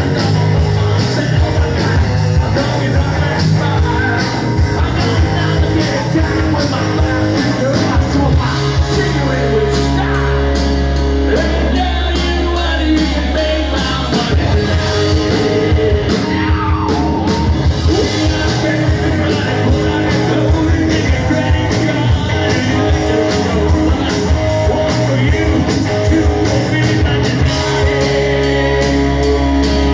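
Live hard rock band playing: distorted electric guitars, bass and drums, with a male lead vocal singing over them.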